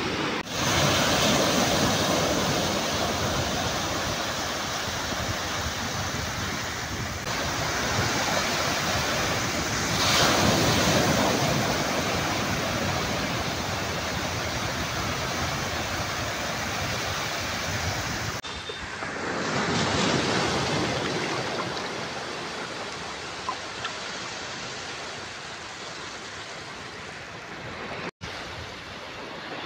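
Sea surf washing onto a sandy beach, a steady wash that swells and ebbs with each wave. The sound changes abruptly a few times and drops out for an instant near the end.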